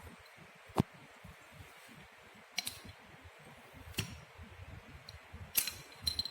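Sharp clicks and clinks of small metal parts and tools being handled while a Bosch common rail diesel injector is taken apart, about five separate strikes, the loudest about a second in.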